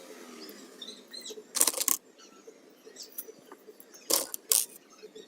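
A few sharp clicks and knocks: a quick cluster about one and a half seconds in and two more about four seconds in, with fainter ticks between.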